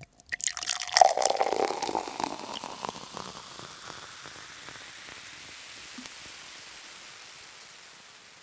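A drink poured into a glass, starting with a few sharp clinks and splashes, then fizzing that slowly dies away.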